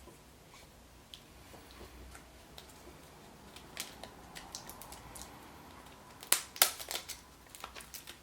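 Surprise-egg packaging handled by hand: scattered light plastic clicks and crinkles, then a few much louder sharp clicks and snaps about six and a half seconds in.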